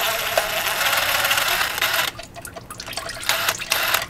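Dirty automatic transmission fluid pouring and dripping from the transmission's valve body into a drain pan as the old filter is pulled, with light metallic clinks. The pour is heavy for about two seconds, then drops suddenly to scattered drips and clicks.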